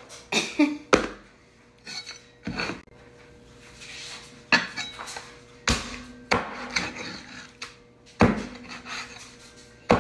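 Cleaver chopping raw turkey on a wooden chopping board: about six sharp, irregular chops a second or two apart, with rubbing and handling noise of the meat between them.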